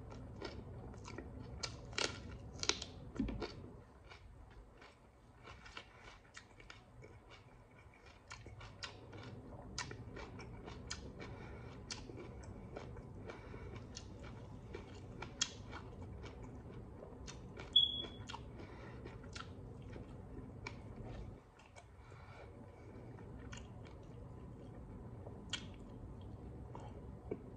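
Close-up chewing of a person eating rice and fish by hand, with many short wet mouth clicks and occasional crunchy bites, over a steady low hum. About two-thirds of the way in there is a brief high squeak, the loudest moment.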